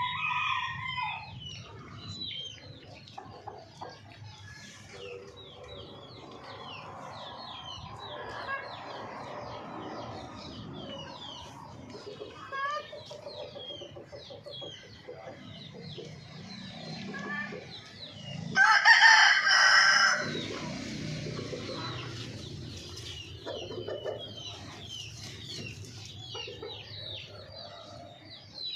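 Chickens clucking, with many short high calls throughout. A rooster crows once, loudly, a little past two-thirds of the way through.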